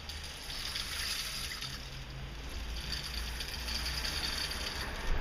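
Soft, steady flowing water, like a gently running river, with a short click at the very end.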